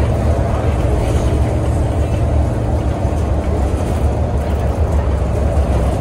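Scania OmniCity bus under way, heard from inside at the front: a steady low engine drone with road noise.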